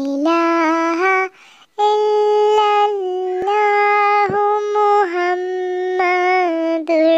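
Unaccompanied high-pitched solo voice singing or chanting in long held notes that bend and waver slightly, with a short pause about a second and a half in.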